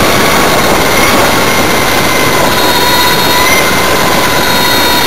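A car driving at a steady speed: dense road and wind noise with a steady engine whine.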